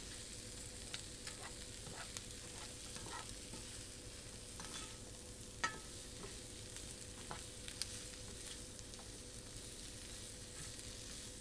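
Shrimp and asparagus sizzling in a frying pan as they are stir-fried, the utensil clicking and scraping against the pan now and then. A sharper knock about halfway through and another a couple of seconds later.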